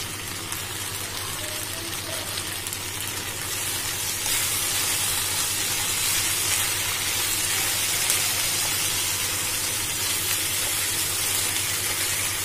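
Paneer, green capsicum and onion sizzling in a hot frying pan as they are stirred with a spatula, a steady hiss that grows a little louder about four seconds in.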